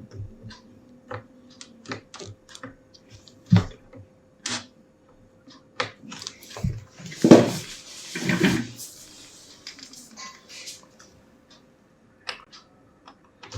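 Small scattered clicks and taps of a precision screwdriver turning out a tiny screw, with light handling of the laptop's plastic casing. Two louder muffled sounds come about seven and eight and a half seconds in, over a faint steady hum.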